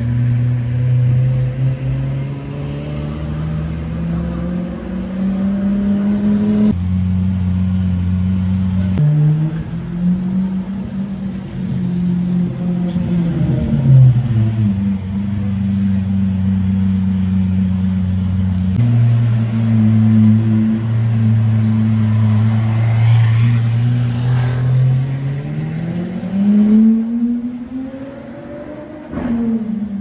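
Lamborghini Aventador SVJ's naturally aspirated V12 running at low speed, its pitch rising several times as it revs and accelerates, with a few abrupt changes in level and pitch.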